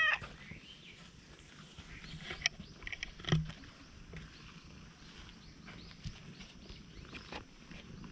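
Stray orange-and-white cat: the end of a loud meow at the very start, then a short faint call and a single thump about three seconds in, with faint soft ticks afterwards.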